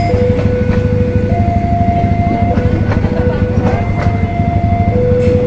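KRL Commuter Line electric trains running past a level crossing with a steady heavy rumble and irregular knocks. Above it, the crossing's warning alarm alternates between a low and a higher tone about every second and a quarter.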